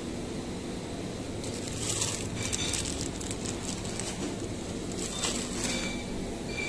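Plastic produce packaging crinkling in two short spells of crackly rustling, over a steady low hum from the refrigerated display cases.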